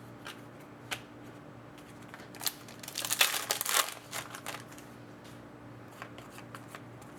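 Trading cards being handled, with scattered light clicks and a second-long crinkling, tearing noise about three seconds in as a foil card pack is ripped open.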